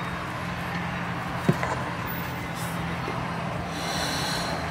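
Steady hum of a car's running engine and road noise heard from inside the cabin, with a small click about a second and a half in.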